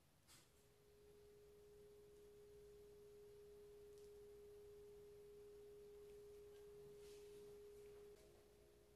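Faint steady pure tone, one held mid-pitched note that begins about half a second in and steps slightly lower and weaker about eight seconds in.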